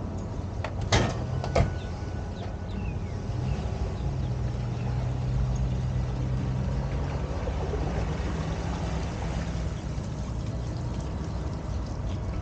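Two sharp slams about a second in, the pickup truck's door shutting, then the truck's engine running steadily as it pulls away.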